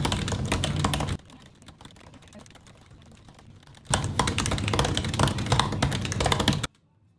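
Fast touch-typing on a MacBook Pro's built-in laptop keyboard: a rapid, dense stream of key clicks. The clicking drops to a faint level about a second in, comes back loud about four seconds in, and cuts off suddenly near the end.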